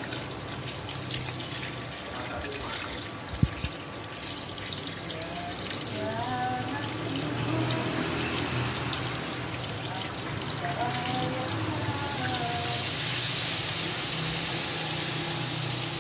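Running water pouring over a gourami fish as it is rinsed and rubbed by hand. The stream gets noticeably louder about twelve seconds in.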